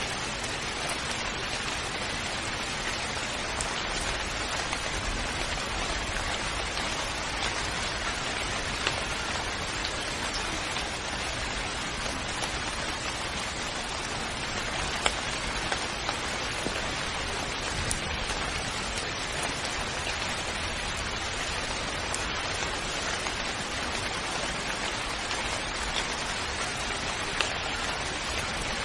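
Steady rain falling: a dense, even hiss with scattered louder drop ticks.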